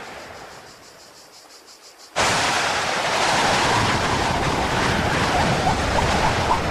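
A fading whoosh, then about two seconds in a loud, steady rushing roar starts abruptly. Near the end a quick, regular series of short pips rises in pitch over it.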